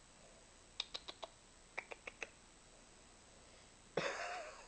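Faint sharp clicks in two quick runs of about four, like a cat's claws catching on carpet as it rolls on its back. About four seconds in comes a short breathy sound with a brief faint tone.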